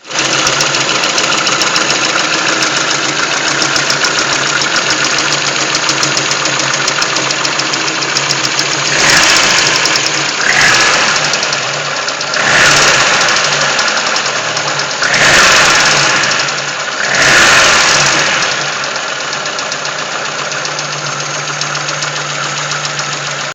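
Lada Kalina (VAZ-1118) engine idling with a knock in it, the fault that the owner is tracking down. Five brief revs come in the middle, then it settles back to idle with the knocking.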